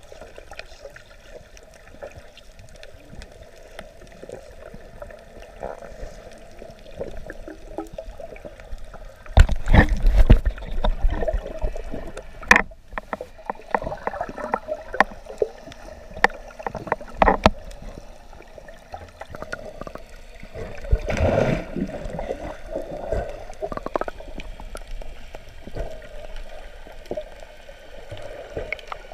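Muffled underwater water noise heard through a camera's waterproof housing: sloshing and gurgling over a faint steady hum, with scattered clicks. A loud rush of water comes about a third of the way in and again about two-thirds in.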